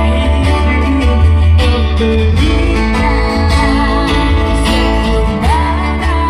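Band music with guitar over a heavy, steady bass line, a melodic line gliding above it.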